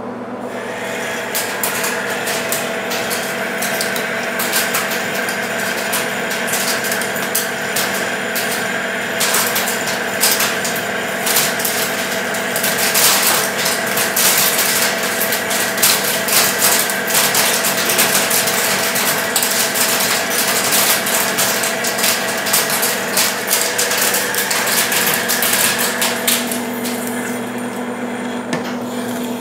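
Metal lathe running with a steady gear whine while a boring bar makes a roughing cut inside a sprocket's bore, opening it up for a shrink fit. A dense crackle of short clicks runs through the middle of the cut and thins out near the end.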